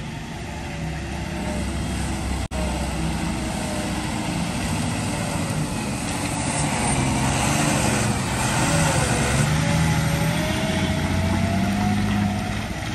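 Heavy loaded diesel truck engines running as a truck pulls out and drives past, a pitched whine riding over the low engine rumble, dipping about nine seconds in and then climbing again.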